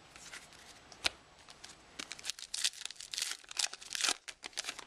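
Plastic foil wrapper of a baseball card pack being torn open and crinkled. A single sharp click about a second in, then a quick run of ripping and crackling from about two seconds in.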